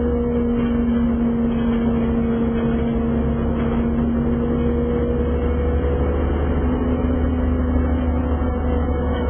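Inside a city transit bus under way: the engine and drivetrain drone with a steady whine over a low road rumble as the bus cruises.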